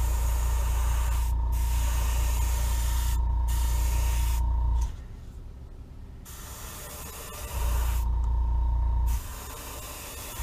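Airbrush spraying paint at low pressure, about 10 to 12 psi: a steady hiss of air for about five seconds that stops, then a shorter burst of about a second and a half near the end, as the trigger is pressed and released.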